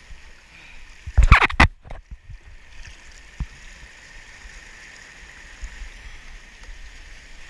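Ocean surf washing against a rocky shoreline in a steady rush of water, with one wave splashing loudly over the rocks about a second in.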